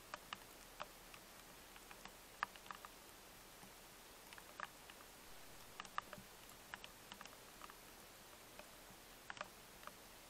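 Near silence: a trail camera's faint steady hiss with scattered soft ticks and clicks, irregularly spaced, a dozen or so.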